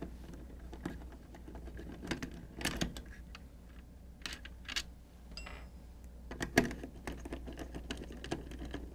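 Hand screwdriver backing out the two drive-assembly screws on a Fleck 5800 water-softener control valve: scattered light clicks and scrapes of the bit and screws against the plastic valve body. A faint steady low hum runs underneath.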